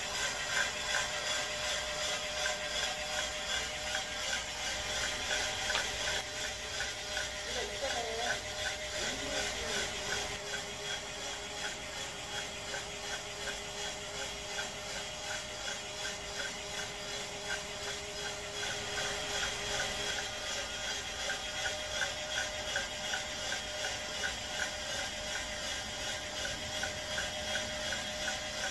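Hobbyist-built drum coffee roaster running mid-roast: its rotating drum and mechanism click steadily about twice a second over a constant hum.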